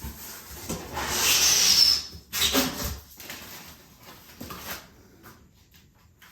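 Packaging being handled as parts are pulled from a cardboard box: a loud rustling scrape about a second in that lasts about a second, a shorter one just after, then quieter rustling.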